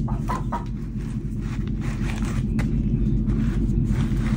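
A steady low rumble with a hum in it, like a motor running, with a few short soft taps and scuffs over it.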